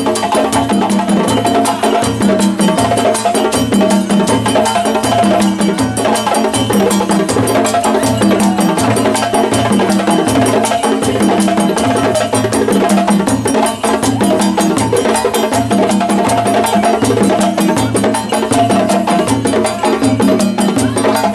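West African drum ensemble playing: djembes slapped and struck by hand over dunun bass drums beaten with sticks, which lay down a steady repeating low pattern of about two beats a second.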